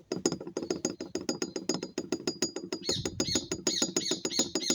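Rapid metallic clicking, about eight to ten knocks a second, of a worn motorcycle valve-train part being rattled by hand. It imitates the valve-train clatter at high revs of an engine whose top end was starved of oil, wearing the aluminium away. A bird squawks from about three seconds in.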